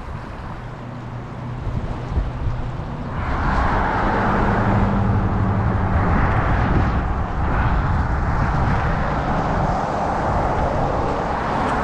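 Wind buffeting the microphone in a low, uneven rumble. About three seconds in, a louder rushing hiss sets in and surges on in gusts.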